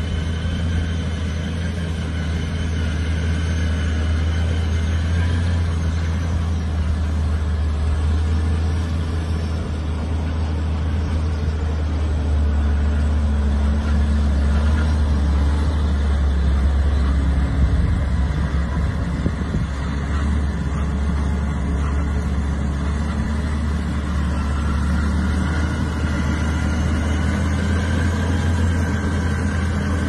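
Truck-mounted Tebbe manure spreader at work: a steady, low engine drone under load with the spreader mechanism running. It grows a little louder around the middle as the truck passes close.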